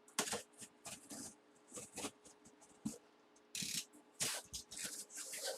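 Sealed packaging being opened by hand: an irregular series of short crackles, rips and clicks as the seal is broken and the box and its wrapping are handled.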